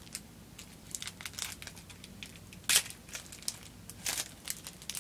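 Foil wrapper of a Dragon Ball Z trading card booster pack crinkling as it is handled and torn open, in a series of short crinkles. The loudest come nearly three seconds in and again about four seconds in.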